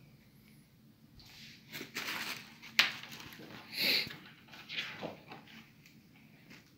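Scattered rustles and knocks of packaging and statue parts being handled, with a sharp click about three seconds in.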